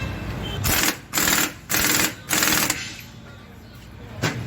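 Four short bursts of a rapid mechanical rattle, each under half a second, followed near the end by two sharp clicks.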